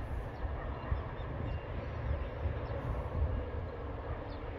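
Train passing unseen, a steady low rumble.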